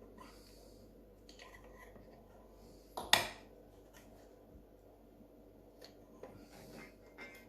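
Faint clicks and rustles of hands handling cuckoo clock parts, with one sharp knock about three seconds in, a quick double strike with the second much louder.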